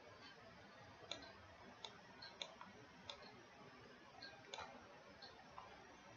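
Near silence broken by about half a dozen faint, irregularly spaced computer mouse clicks over a low hiss.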